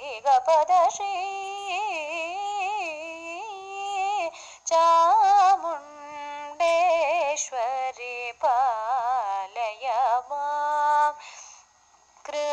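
A solo female voice singing a devotional song to the goddess Chamundeshwari, holding long notes with quick wavering ornaments and sliding between pitches. The singing breaks off for a brief pause near the end.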